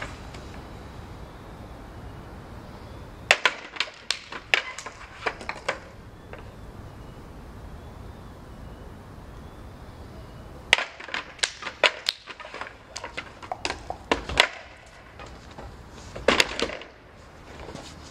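Three bursts of rapid, sharp knocks and taps on a table and its objects, each burst one to a few seconds long, with quiet stretches between.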